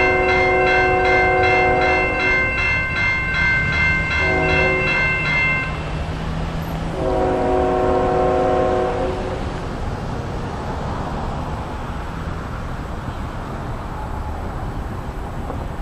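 Train horn blowing the end of the grade-crossing signal: a long blast ending about two and a half seconds in, a short blast near four seconds, and a final long blast from about seven to nine seconds. Under it the crossing warning bell rings rapidly and stops about six seconds in, over the low rumble of the slowly passing train.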